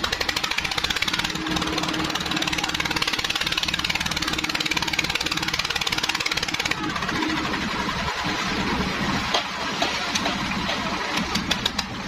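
Engine of a concrete mixer and lift running steadily, with a fast, even knocking beat.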